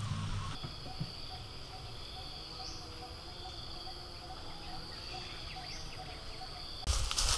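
Woodland ambience of insects trilling steadily at a high pitch, with a faint, rapidly repeating lower call beneath them and two short rising chirps. About seven seconds in, loud rustling and knocks cut in.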